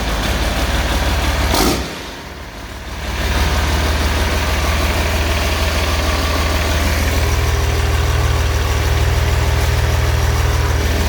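Freshly rebuilt Mercedes-Benz OM366LA turbocharged inline-six diesel engine on its first start. The sound drops briefly about two seconds in, picks up again around three seconds, and the engine then runs steadily at idle.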